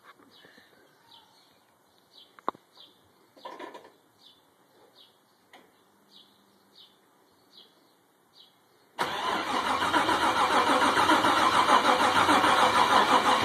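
About nine seconds of faint, evenly repeated high chirps and a sharp click, then a freshly rebuilt GM LS1 5.7-litre V8 fires on its first start, catching suddenly and running loud and steady. The owner thinks its tune may be a bit off.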